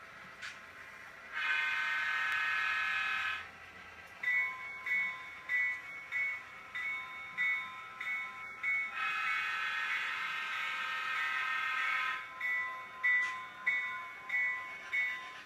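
Model diesel locomotive's onboard sound system playing a horn blast of about two seconds, then ringing its bell in steady strokes, then a second, longer horn blast, after which the bell rings again.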